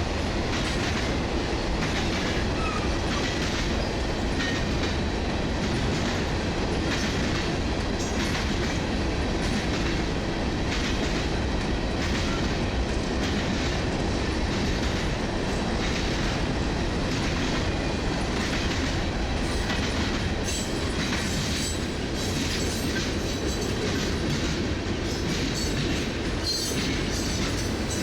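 Freight cars of a long manifest train rolling steadily past, their wheels clicking over rail joints, more densely in the last third.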